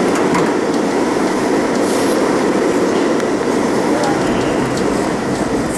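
R32 subway train running through the tunnel and into a station, heard from inside the car: a steady rumble of steel wheels on rail with a few sharp clicks over the rail joints.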